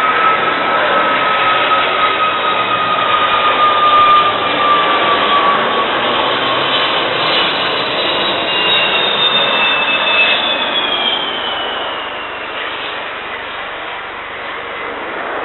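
Jet engines of a Boeing 747-400F landing: a continuous loud rush with a high whine that slowly drops in pitch, then higher whines that fall away about ten seconds in as the noise eases off.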